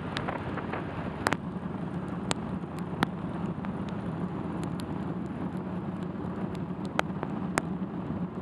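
Motorcycle engine running steadily at cruising speed, with wind and wet-road noise, and sharp irregular ticks of raindrops striking the windscreen every second or so.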